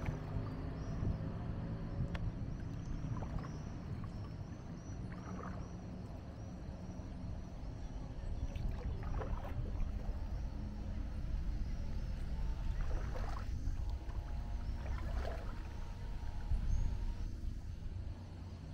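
Kayak paddle strokes dipping and splashing in calm river water a few times, over a steady low hum.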